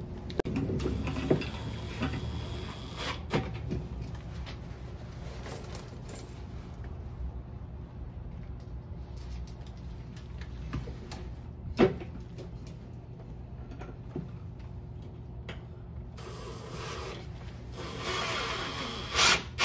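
Cordless drill running in two runs, driving screws through a metal electrical enclosure's mounting holes into the wall: a short run about a second in and a longer, louder one near the end, with a few knocks and handling of the box in between.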